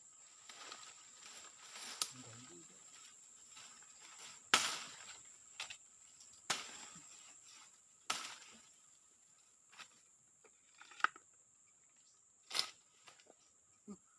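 A steady high-pitched insect drone, with irregular sharp clicks and rustles over it, about a dozen in all.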